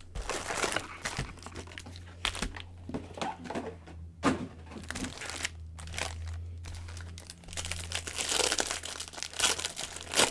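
Foil wrappers of Bowman baseball card packs crinkling and rustling in irregular bursts as gloved hands shuffle and pick up the packs, over a low steady hum.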